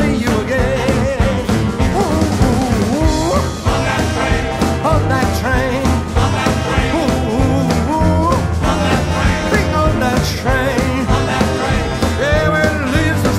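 Rock-and-roll band playing live, with electric guitar, upright bass and drums.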